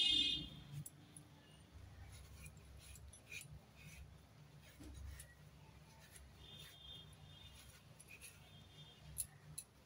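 Faint scraping and ticking of arum root being pared against a boti blade, with a short high-pitched squeak at the very start and a fainter squeak about two-thirds of the way through.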